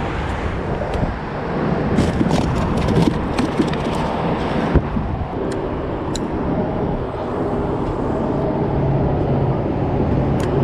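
Steady rumble of road traffic on the bridge overhead, with a cluster of sharp clicks and knocks about two to four seconds in.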